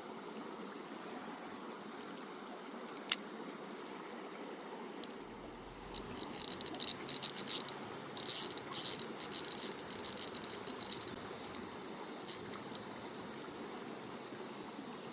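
Mountain stream water rushing steadily. About six seconds in, bursts of rapid, sharp high-pitched clicking come and go for several seconds.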